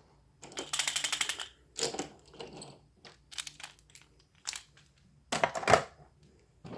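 Toy subway train cars with pinwheel and fat-wheel trucks rolled and handled on a hard surface: a rapid run of rattling clicks from the wheels about a second in, then scattered clicks and a louder clatter near the end. The difference in sound comes from the cars' different weights.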